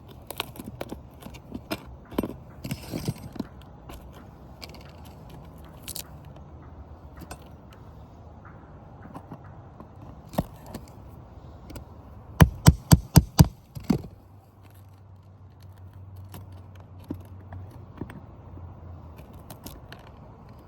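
Hand tools working on asphalt roof shingles: scattered taps and scraping, then a quick run of about six sharp knocks about twelve seconds in. A faint low hum follows.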